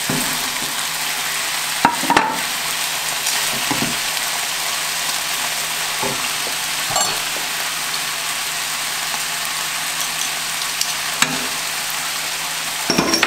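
Diced chicken, onion and garlic sizzling steadily in hot olive oil in a sauté pan, browning. A few sharp knocks and scrapes of the wooden spoon and utensils against the pan break through the sizzle.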